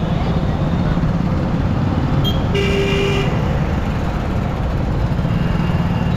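Steady low rush of wind and engine noise from a moving motorcycle in city traffic. About two and a half seconds in, a vehicle horn honks once, for under a second.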